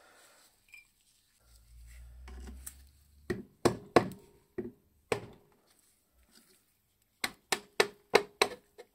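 Metal-on-metal handling of an old electric motor's cast housing on a workbench: a short low rumble, then several heavy knocks. Near the end comes a quick run of sharp taps, about three a second, as a screwdriver is worked into the seam to pry off the end bell.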